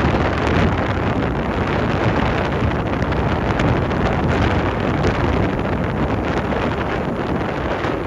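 Strong nor'easter wind buffeting the microphone over the steady roar of surf, a constant rushing rumble with no breaks.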